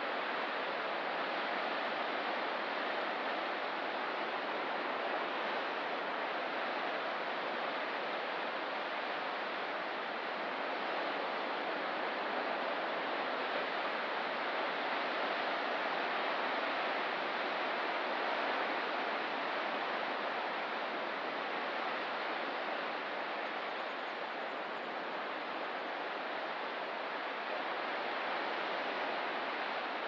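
Ocean surf washing continuously as a steady hiss, rising and falling only slightly in level.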